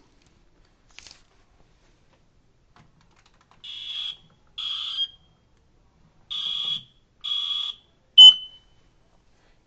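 Smoke detector test alarm: four high-pitched beeps of about half a second each, unevenly spaced, then a short, sharp chirp near the end. It is a detector judged due for replacement.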